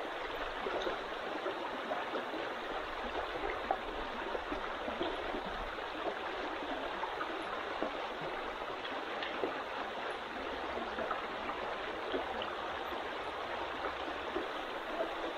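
Mountain trout stream running: a steady rush of flowing water.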